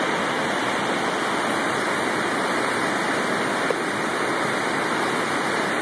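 Steady rushing of a large volume of water being released from Hoover Dam, an even, unbroken noise.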